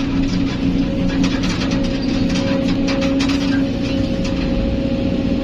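Excavator's diesel engine running steadily under load, with a steady whine, and a few light knocks and clatters from the working machinery about a second to three seconds in.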